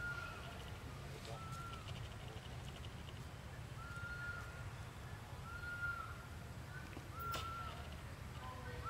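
A bird calling repeatedly: a short whistled note that rises and falls, about every one and a half seconds, over a steady low rumble, with one sharp click about seven seconds in.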